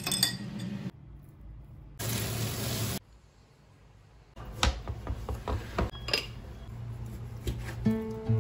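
Quick succession of kitchen sounds: ice clinking as a spoon stirs an iced drink in a glass, then about a second of loud hiss, a quiet stretch, and a run of sharp knocks and clicks. Guitar music starts near the end.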